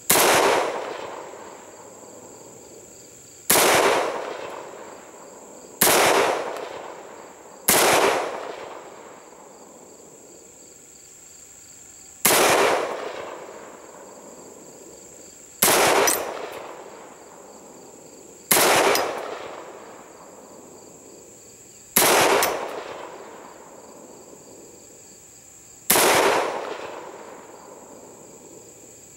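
FSL FN FAL-pattern semi-automatic rifle in .308 firing about nine single shots, spaced two to four seconds apart, each sharp crack followed by an echo that dies away over a second or two.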